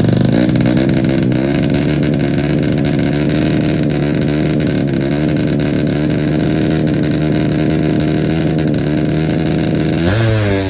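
Tuned 130cc four-stroke underbone motorcycle engine running loudly at nearly steady revs, the pitch wavering only slightly, changing to a different sound near the end.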